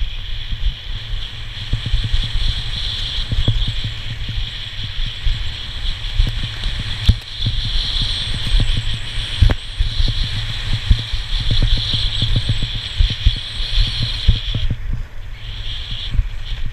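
Wind buffeting the microphone of a skier's body-worn camera during a fast descent, a dense low rumble with irregular thumps. Over it runs a steady hiss of skis scraping over packed snow, which drops out briefly near the end.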